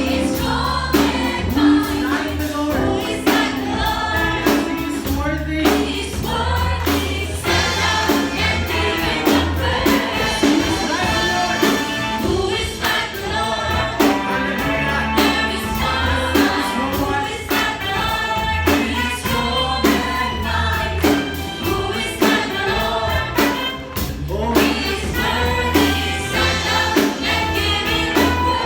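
Congregational gospel worship song: many voices singing together over a live band with bass and a steady drum beat.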